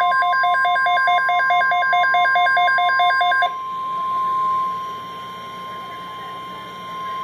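NOAA Weather Radio warning alarm tone: a steady 1050 Hz tone held for about seven seconds, stopping just before the end, the signal that an alert message follows. For the first three and a half seconds a rapid beeping alarm, about seven beeps a second, sounds over it and then cuts off.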